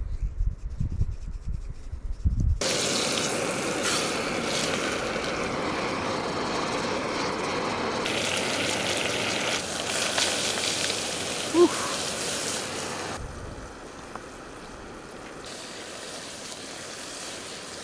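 Fish frying in butter in a pan, a steady sizzling hiss, after a couple of seconds of low rumbling at the start. The sizzle changes level abruptly a few times and is quieter near the end.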